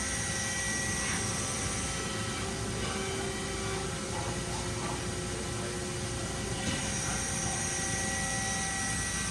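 Hydraulic press brake running, its 15 HP main pump motor giving a steady hum with several constant whining tones.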